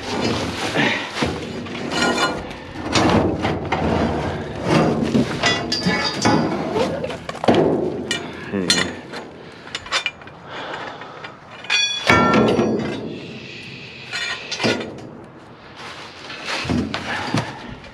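Pieces of scrap metal clanking and knocking together as they are handled. One metal piece rings out clearly about twelve seconds in.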